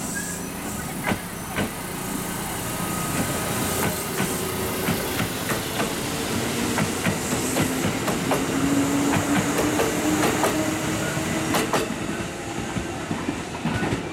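Kintetsu electric train pulling out of the station and accelerating past. The motor whine rises steadily in pitch and the wheels clack irregularly over rail joints.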